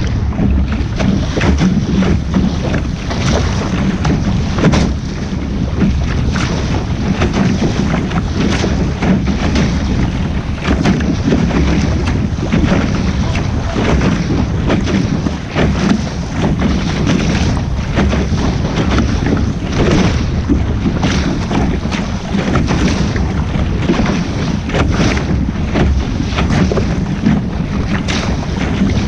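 Heavy wind noise on the microphone aboard a sailing boat under way: a constant low rumble with irregular gusty buffeting, and water washing along the boat.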